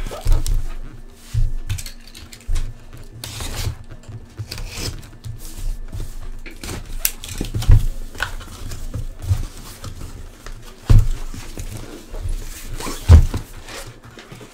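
A sealed cardboard case being opened by hand: packing tape tearing and flaps being pulled open, with irregular knocks and a few heavier thumps as the box is handled on the table.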